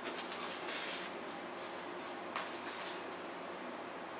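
Hands lifting a foam RC airplane fuselage out of its molded packaging tray: soft rustling and scraping in the first second, then a single light click a little past halfway.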